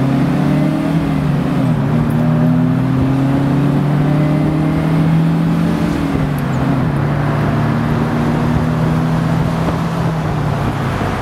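1979 MGB roadster's four-cylinder engine pulling through the gears at highway speed, heard from the open cockpit under heavy wind noise. The engine note climbs steadily and drops sharply twice, about two seconds in and again around seven seconds, as it is shifted up.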